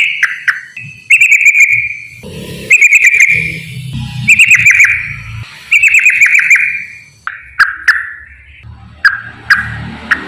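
Yellow-vented bulbul (trucukan) singing its rapid, rattling 'ropel' song: short bubbly phrases repeated about every second and a half, each a fast run of notes that falls slightly in pitch.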